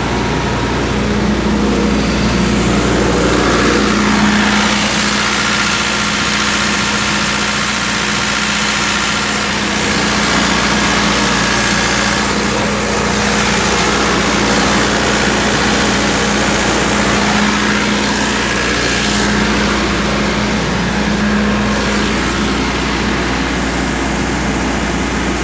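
Engine of a portable industrial generator set running steadily at constant speed, a continuous even drone with a faint high whine.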